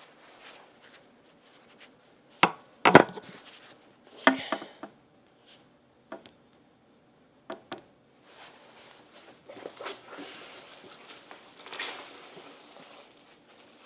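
Knocks and clunks of a heavy 8-inch subwoofer being lifted and set down in its packaging, the loudest about three seconds in, followed by a stretch of rustling packing material.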